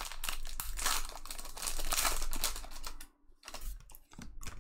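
Trading cards and pack wrapper being handled: a quick run of small clicks and rustles as cards slide over one another, dropping out briefly a little after three seconds in.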